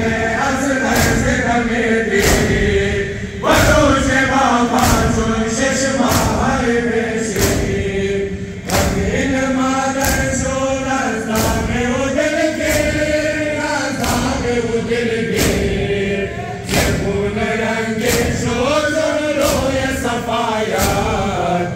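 Crowd of men chanting a Shia noha together in long drawn-out phrases, over a steady beat of hands striking chests in matam.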